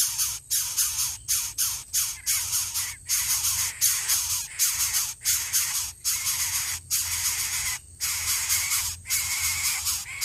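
Greater coucal chicks begging at the nest with a rapid string of harsh hisses, about two or three a second, while the parent feeds them.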